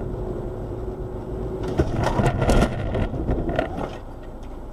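Car crash heard from inside the car: steady road noise with a hum, then about two seconds in a run of loud bangs and scraping lasting about two seconds as the car goes off the road, then quieter running noise.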